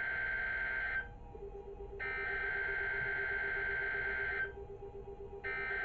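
NOAA Weather Radio SAME digital header tones for a Required Weekly Test: repeated data bursts about two and a half seconds long, one ending about a second in, the next from two to about four and a half seconds, and a third starting near the end. From about a second in, a low, rapidly pulsing beep runs underneath.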